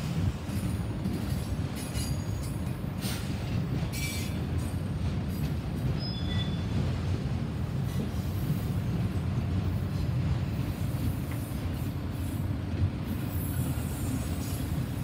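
Freight train autorack cars rolling past: a steady low rumble of steel wheels on rail, with a few brief high wheel squeals in the first half.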